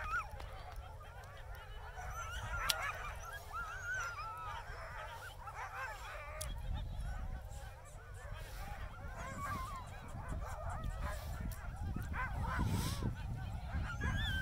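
A chorus of many sled dogs howling and whining at once, their calls wavering and overlapping. Wind rumbles on the microphone, stronger from about halfway through.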